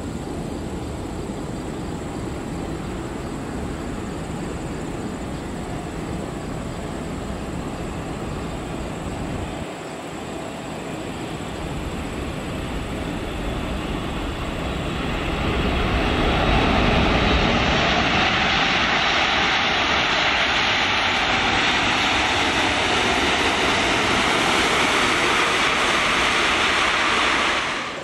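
Four-engine Boeing 747 landing: a steady rushing jet noise on approach, then, about halfway through after touchdown, the noise swells into a loud, steady roar as reverse thrust is applied on the rollout.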